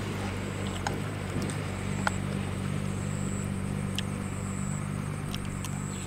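An engine running steadily in the background, a low even drone, with a few sharp clicks of a metal spoon against a bowl.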